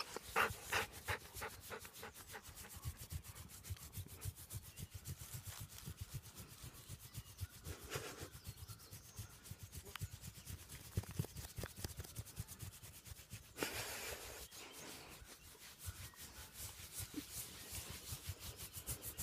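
A hand briskly rubbing and scratching a wolf's thick fur right next to the microphone: fast, rhythmic brushing strokes that keep on steadily, with a louder stretch of rustling a little past the middle.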